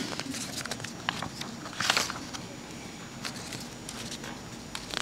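Scattered footsteps, shuffling and small knocks from people moving in a gymnasium crowd, with a brief louder noise about two seconds in.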